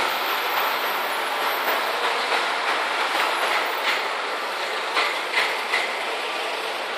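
Electric-motor-driven pumps running: a steady mechanical whir and rattle, with a few sharp ticks in the second half.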